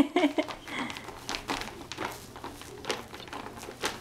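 A toddler's feet stepping and stamping on a crinkle play mat, its plastic sheet giving irregular sharp crinkles and crackles.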